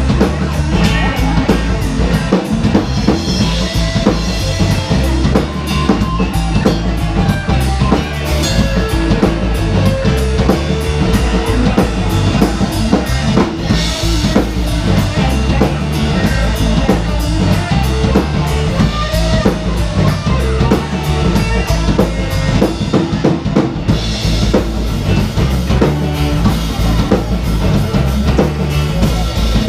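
Live band playing a rock song: a drum kit with bass drum and snare keeps a steady beat under electric and acoustic guitars.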